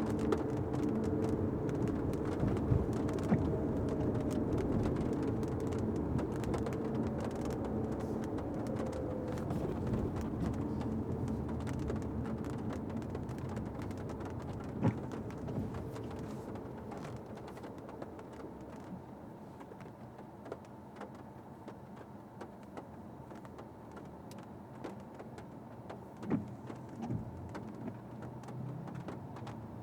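Fiat 500X engine and road noise slowing down: the pitched hum falls and fades over the first ten seconds or so, leaving a quiet, near-idle car. Scattered light taps and clicks run through it, with a few sharper knocks.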